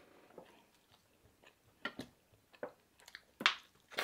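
Close-miked mouth sounds of eating and drinking: soft chewing smacks and clicks, and gulps of water from a plastic bottle. The loudest comes about three and a half seconds in.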